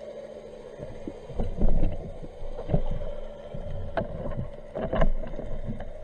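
Underwater sound picked up through a camera's waterproof housing while spearfishing. There is a steady low hum, then irregular dull thumps and knocks from water moving and gear bumping, loudest about a second and a half in, with a few sharp clicks near the end.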